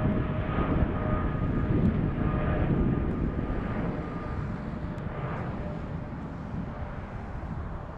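Boeing 777-200LR's twin jet engines climbing out after takeoff: a deep, steady rumble with a faint high whine, growing quieter partway through as the airliner pulls away.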